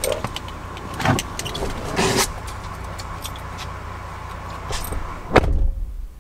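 Driver climbing out of a pickup truck's cab, with rustling and a few knocks, then the driver's door shutting with a loud thud a little over five seconds in. After the thud the sound inside the cab drops off sharply.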